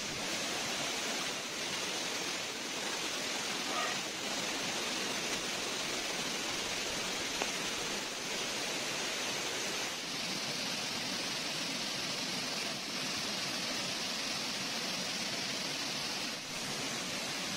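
Steady rushing of a small stream and waterfall.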